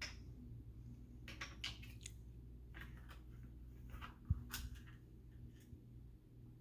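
Faint handling of a small toy package being opened: a scattered series of soft clicks and rustles, with one dull low thump about four seconds in.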